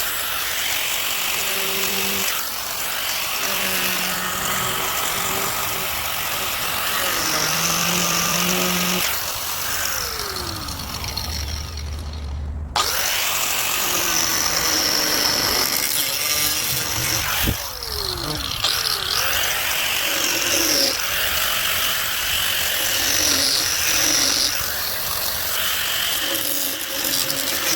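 Power grinder grinding away a stripped metal screw, its high whine shifting in pitch as it bites into the metal. The sound stops briefly about twelve seconds in, then runs on.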